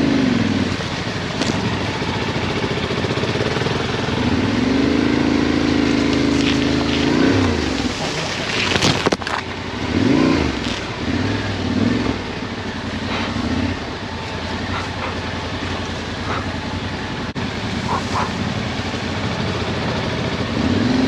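Adventure motorcycle's engine, likely the Yamaha Ténéré 700's parallel twin, running at low speed on a rough dirt trail. It revs up and holds for a few seconds, drops back, then rises and falls in shorter swells. A few sharp knocks come near the middle.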